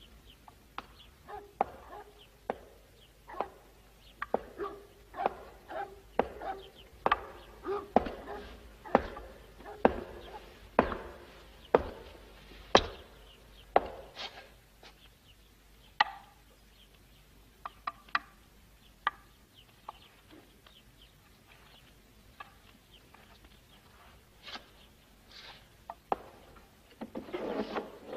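A spoon clinking and scraping against earthenware bowls as a man eats, in a run of sharp clicks about two a second that thins out about halfway through.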